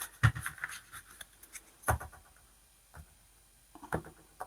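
Oracle cards being shuffled and handled on a table: light rustling and scraping with several sharp knocks, the loudest just after the start and about two seconds in.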